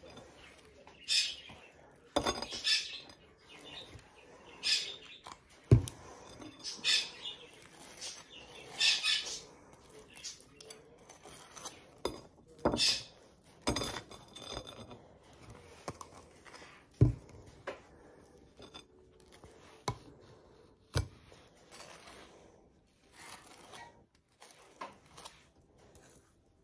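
Table knife scraping and clinking against a ceramic plate and toast while spreading peanut butter and arranging banana slices, in irregular clicks and short scrapes, with a few sharper knocks.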